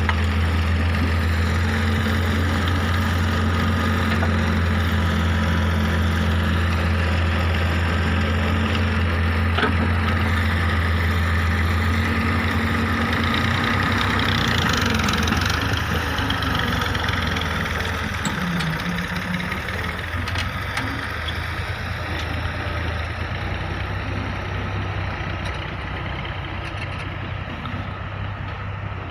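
Hitachi excavator's diesel engine running steadily with a deep hum; about halfway through the note changes and gets a little quieter.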